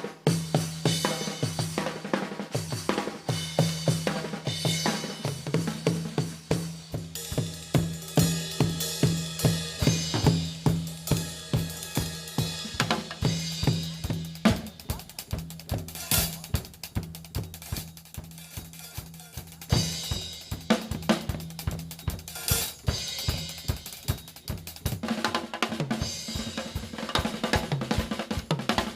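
Drum kit played fast and busily, with snare, bass drum, hi-hat and a few cymbal crashes, over a held low note that shifts higher near the end.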